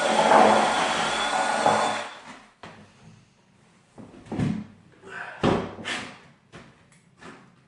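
Power drill running as it bores into wood, stopping about two seconds in, followed by a handful of separate knocks and clunks of tools and parts being handled.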